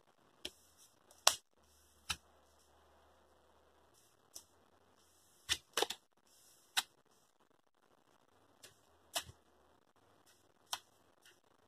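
Tarot cards being handled, heard as about a dozen sharp, irregular clicks and taps with quiet between them.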